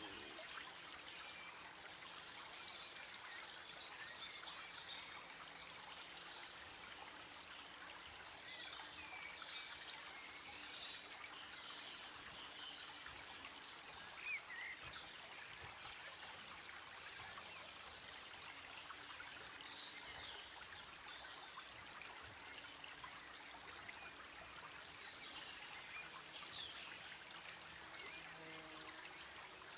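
Faint steady hiss like running water, with small birds chirping on and off throughout and a quick run of high chirps about 23 seconds in.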